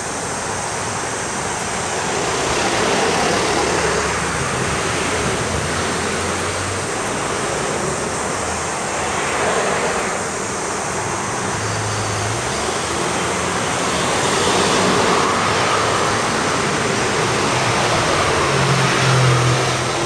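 Road traffic: a steady rushing noise with cars passing one after another, each swelling and fading, a low engine hum showing in some of them.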